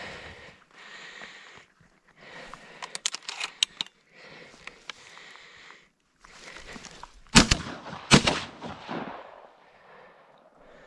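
Two shotgun shots in quick succession, less than a second apart, the second ringing out for about a second. Earlier comes a quick run of sharp clicks and crackles.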